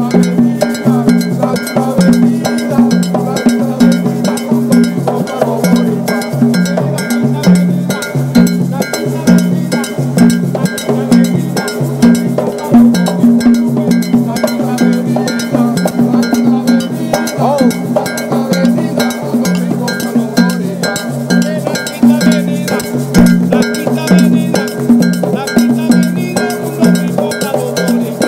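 Afro-Caribbean hand percussion: hand drums played in a steady, repeating rhythm.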